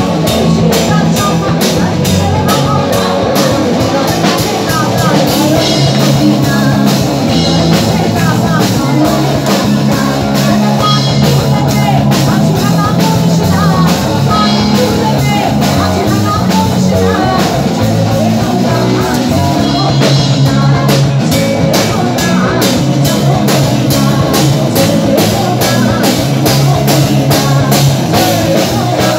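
Live rock band playing: electric guitar and a drum kit keeping a steady beat, with a lead voice singing over them.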